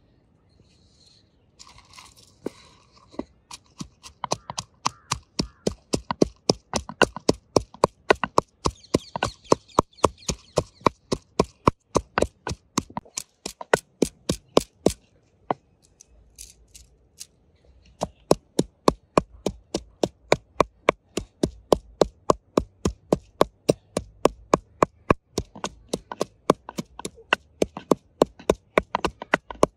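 Wooden pestle pounding green chillies in a wooden mortar: sharp, evenly repeated strikes, about three a second, that start a couple of seconds in and let up briefly around the middle.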